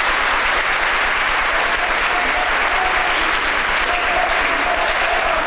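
Large indoor audience applauding steadily, with a few voices calling out over the clapping in the second half.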